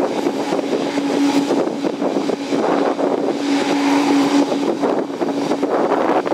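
Mitsubishi MU-2B-40's twin Garrett TPE331 turboprop engines running at idle with the aircraft stopped, a steady loud drone with a constant low tone under a rushing propeller noise that swells and eases every couple of seconds.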